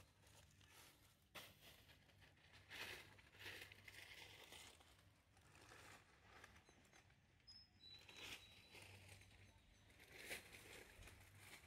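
Near silence: faint background with a low steady hum and a few soft rustles.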